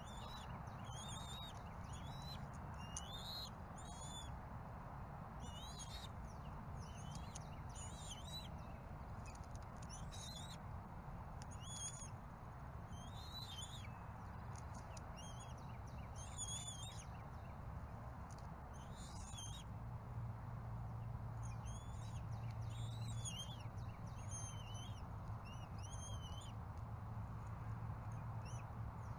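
Small birds chirping and trilling in short, high calls about once a second, over a steady low hum that grows slightly louder about two-thirds of the way through.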